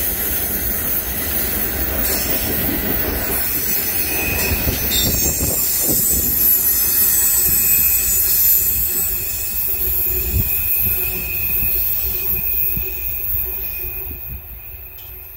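Steel wheels of a train's ballast hopper cars rolling past on a curve, with steady high-pitched wheel squeal over the rumble of the wheels on the rail. The sound fades over the last few seconds as the last cars pull away.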